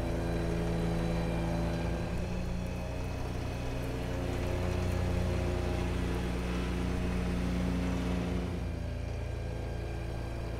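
Grasshopper 930D diesel zero-turn mower running steadily while mowing, a constant engine hum over the noise of the cutting deck. The brighter upper part of the sound drops away about eight and a half seconds in.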